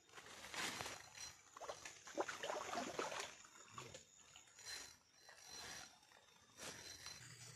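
Irregular splashing and rustling of a hooked fish being fought at the bank of a shallow, muddy flooded creek, loudest about half a second in and again between two and three seconds in.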